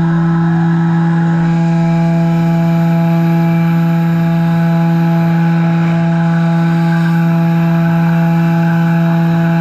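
Haas VF-4 CNC mill spindle running at a steady speed, holding one unchanging pitch, as its end mill cuts into a Delrin plastic block under flood coolant.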